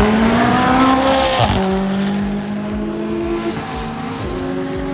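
A car's engine accelerating hard, its pitch climbing, then dropping suddenly at a gear change about a second and a half in and holding steadier after that.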